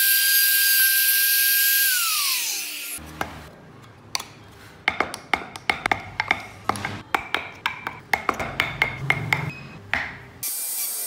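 Handheld trim router running at a steady high whine as it cuts a wooden model wheel, then winding down, falling in pitch, after about two seconds. Then a rapid run of sharp clicks, about four a second, as a small hand chisel cuts into the wood to carve the wheel's spokes. Near the end a small power tool starts with a steady whir.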